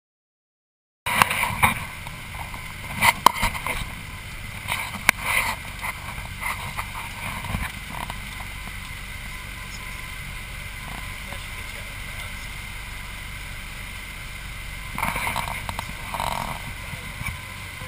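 Light single-engine airplane's piston engine and propeller running steadily, heard inside the cockpit as a constant drone; it cuts in about a second in. A few short louder bursts stand out over the drone, several near the start and one more near the end.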